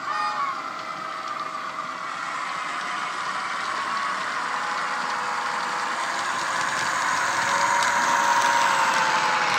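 Diesel engine sound from the DCC sound decoder and small sugarcube speaker in a model Australian T class locomotive, running steadily under load as it hauls its wagons, growing louder as it approaches and passes, its pitch dropping slightly near the end.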